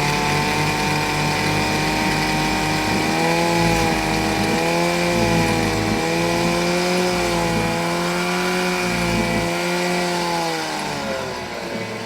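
Chrysler 4.4 hp two-stroke outboard motor running revved up, its pitch wavering slightly as the throttle is held. Near the end the pitch drops as it is throttled back.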